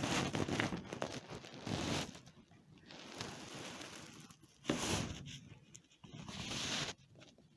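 Whiteboard marker drawn along a ruler on a whiteboard, ruling the lines of a square: several scraping strokes, each about a second long, with short pauses between them.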